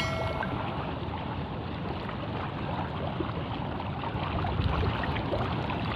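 Steady wind and sea water moving around a small boat, with wind rumbling on the microphone. A ringing chime from a subscribe-button animation fades out at the very start.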